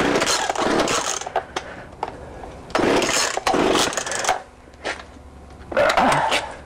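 A choked Poulan 38cc two-stroke chainsaw being pull-started: three hard yanks on the recoil starter cord, each a rasping burst about a second long, and the engine does not settle into running between them.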